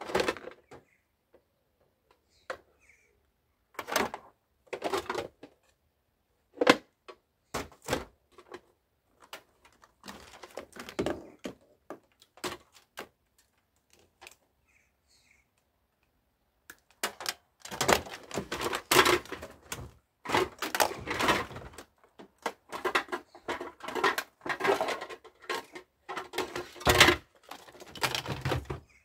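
Small plastic electrical appliances being handled and their mains cables cut away with a hand tool: irregular clicks, clatters and knocks, sparse at first and much busier over the last dozen seconds.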